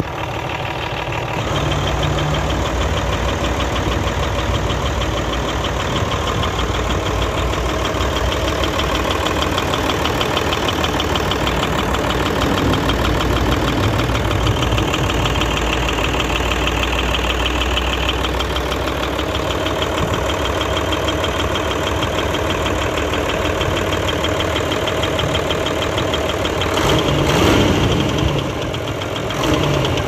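Hino J08C six-cylinder diesel truck engine idling with an abnormal noise, which the mechanic traces to the engine-driven air compressor. The sound is briefly louder near the end.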